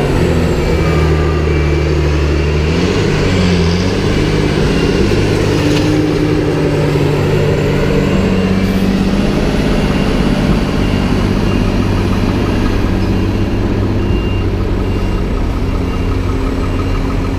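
Heavy diesel engines running steadily: a tipper truck close by and tractors pushing maize silage up the clamp. A reversing alarm beeps about once a second near the start and again near the end.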